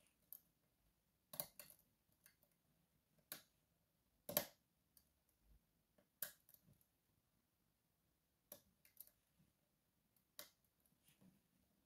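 Faint, irregular metallic clicks of a lock pick and tension wrench working the sliders of an Evva 3KS lock; about ten clicks, the loudest about four and a half seconds in.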